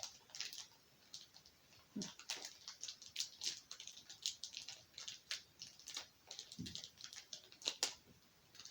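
Foil Pokémon booster-pack wrapper crinkling and crackling in quick irregular bursts as it is worked open by hand, with a couple of soft thumps.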